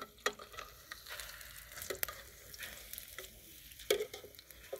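Rice balls deep-frying in hot oil in an aluminium pot, a steady sizzle, while a slotted metal spoon stirs and turns them, knocking against the pot a few times, loudest near the end.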